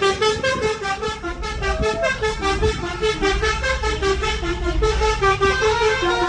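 Bus telolet horn, a multi-tone musical horn, playing a fast tune of short notes that jump between pitches several times a second.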